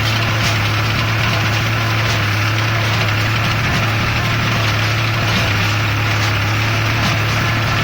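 Welger AP45 small square baler running steadily with a tractor engine at constant speed, a continuous mechanical drone with faint clicks now and then.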